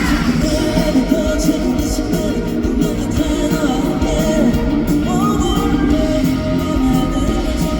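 A rock band playing live, with a male lead voice singing the melody over the band.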